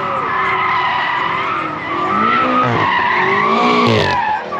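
Car tyres squealing in a long, wavering screech, as a car spins its wheels on the pavement, with an engine running hard beneath.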